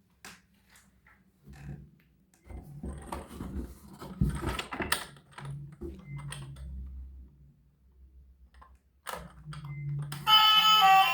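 Light clicks and knocks of small hard objects being handled, scattered irregularly and busiest in the middle, over a low hum. Music begins near the end.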